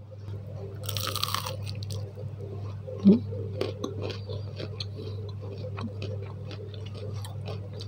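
Crunchy bite into a battered, deep-fried eggplant fritter (bakwan terong) about a second in, followed by crisp chewing with many small crackles. A short hummed 'mm' about three seconds in.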